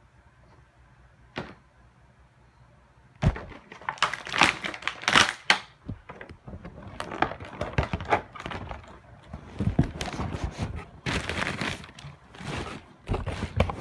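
Toy packaging of an action-figure two-pack being torn and pulled open by hand: irregular crinkling, cracking and clicking of plastic and cardboard. It starts about three seconds in.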